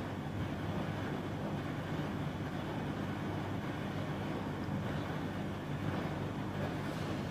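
Cut potatoes deep-frying in hot oil in a pan: a steady, dense sizzle and crackle of bubbling oil, with a low hum underneath.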